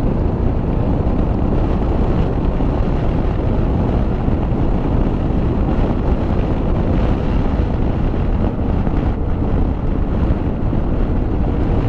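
Wind rushing steadily over the camera microphone while riding, with the Honda Africa Twin 750's V-twin engine running underneath at an even cruising speed.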